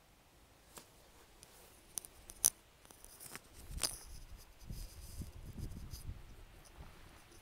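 Handling noise from a handheld camera: a few sharp clicks and scrapes, then soft low thuds about twice a second, footsteps on grass.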